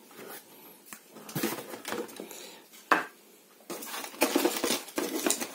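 Packaged fishing lures being handled in a pile: hard plastic blister packs and cardboard-backed metal spoons clicking, rustling and lightly clinking against each other, with one sharp click about three seconds in and busier handling near the end.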